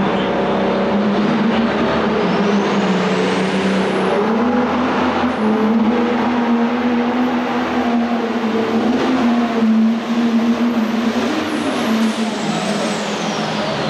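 International pulling tractor's engine running hard at full throttle under load while pulling the sled. A high whine climbs steadily in pitch through the pull, then falls away near the end as the engine note drops.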